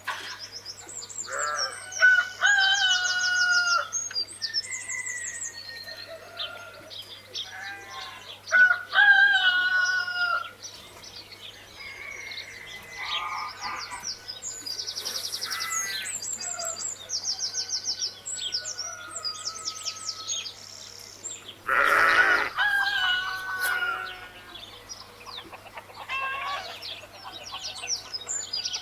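Roosters crowing, several drawn-out crows, with hens clucking and small birds chirping rapidly throughout.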